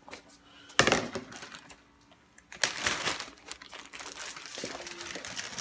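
Clear plastic zip-top bag of grapes crinkling as it is handled: a short burst about a second in, then crinkling again from about halfway through.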